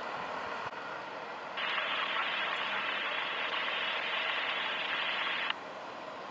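Parked fire engine and ambulance idling, with a steady hiss that starts suddenly about a second and a half in and cuts off suddenly some four seconds later.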